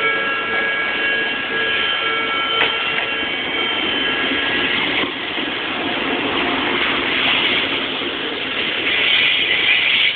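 Level-crossing warning bell ringing, a set of steady high tones over a repeating lower pulse. From about halfway, the rushing rumble of an approaching Odakyu 20000-series RSE Romancecar grows louder and covers the bell near the end.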